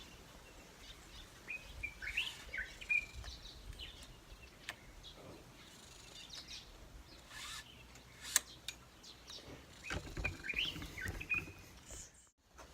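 Faint bird chirps in short clusters, with a few light clicks in between.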